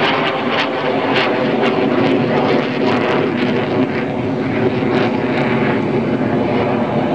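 Jet engine of a SAAB JAS-39 Gripen fighter (a single Volvo RM12 turbofan) in flight overhead, a loud continuous roar that turns somewhat duller in the second half.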